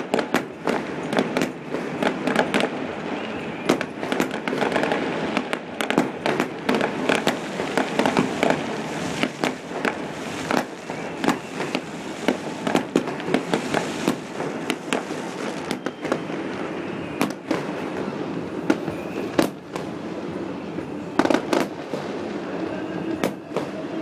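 A New Year's fireworks display going off nonstop: many sharp bangs in quick, irregular succession over a continuous wash of further bursts.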